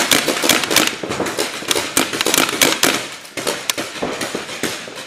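Rapid, overlapping shots from paintball markers, many a second, densest over the first three seconds and thinning out towards the end.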